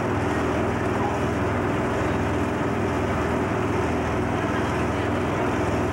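Waterjet-propelled sightseeing boat's engine running at a steady cruise, heard from inside the passenger cabin as a constant drone.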